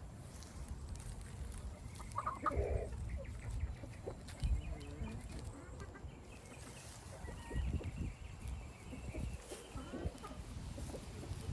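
Chickens clucking and calling in short scattered bursts, with low bumps and rustling underneath.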